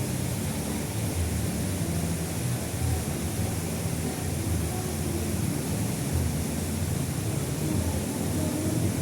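River water flowing: a steady, unbroken rushing noise.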